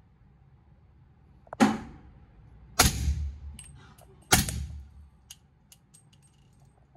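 Three suppressed shots from a .300 Blackout rifle fitted with a SilencerCo Sandman-S suppressor, firing 220-grain subsonic rounds. The shots come about a second and a half apart, each a sharp crack with a short echo off the range walls, followed by a few faint clicks.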